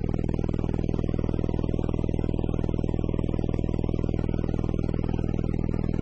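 Sound Splinter RL-p car subwoofers playing a sustained low bass tone at very high level, steady and unchanging with a fast flutter, pushing enough air to blow hair about in the cabin.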